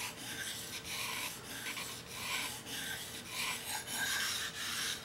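High-carbon steel knife blade stroked back and forth on a wet Japanese whetstone, a rhythmic scraping of about two strokes a second, as a secondary bevel is honed onto the edge.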